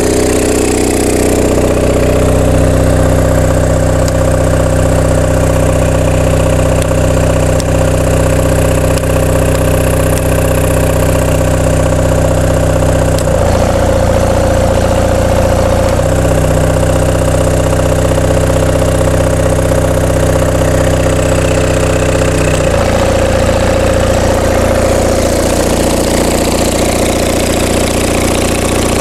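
Onan MDJE diesel generator set running steadily under load from a load bank. Its engine note changes abruptly about halfway through, again a few seconds later and once more near three-quarters through, as load steps are switched off and on.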